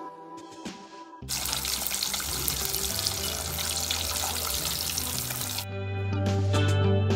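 Breaded milkfish (bangus) fillets sizzling as they deep-fry in hot oil. The sizzle starts abruptly about a second in and stops suddenly some four seconds later, under background music.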